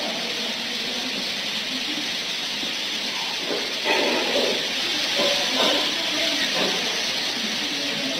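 A steady hiss, with faint, irregular low sounds coming in from about halfway through.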